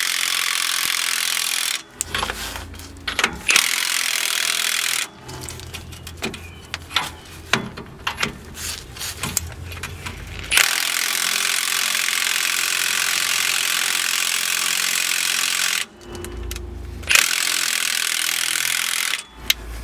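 Milwaukee M18 cordless impact wrench hammering on a 24 mm U-bolt nut of a van's rear axle, in several long bursts with short pauses between them, working the nut loose and down its threads.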